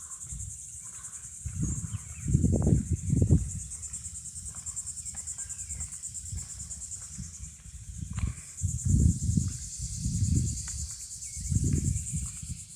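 A steady, high, fast-pulsing insect chorus, with several louder low rumbles on the microphone coming and going.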